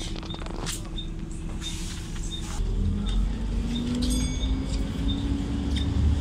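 Bus engine cooling fan running with a low hum that grows louder about two and a half seconds in, its tone slowly rising in pitch as it speeds up. A faint high pip repeats about every 0.7 s, and a short electronic beep sounds about four seconds in.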